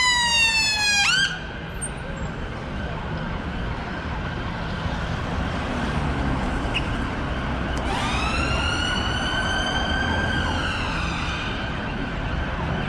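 Emergency vehicle siren wailing over steady street noise. A loud falling wail cuts off about a second in, and a quieter wail rises about eight seconds in, holds, then falls away.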